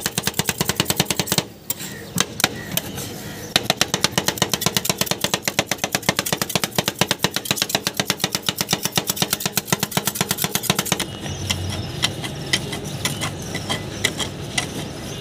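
Two metal spatulas chopping and mashing ice cream on a stainless steel cold plate in fast, even clacking strokes, with a short break about a second and a half in. Near the end the clacking thins out to lighter scraping as the mixture is spread flat.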